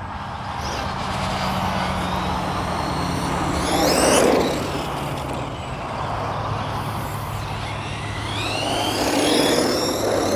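Tamiya Twin Detonator RC car's twin brushless motors whining under throttle, twice: a louder swell about four seconds in and another near the end, the high pitch sweeping up and down. Steady outdoor noise lies underneath.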